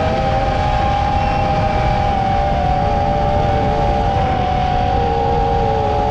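FPV quadcopter's electric motors and propellers whining steadily in a hover, several close pitches wavering slightly, over wind buffeting the microphone.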